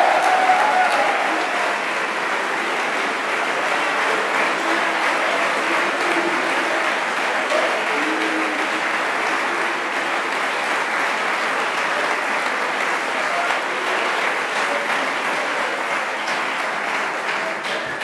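Audience applauding steadily, fading out at the end.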